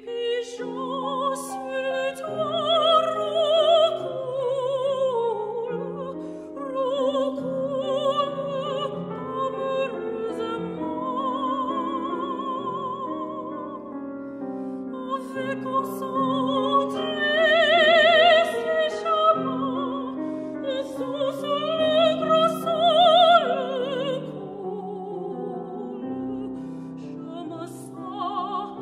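Classical soprano singing in full operatic voice with a wide vibrato, accompanied by a grand piano. Her long sung phrases swell louder and fall back over sustained piano chords.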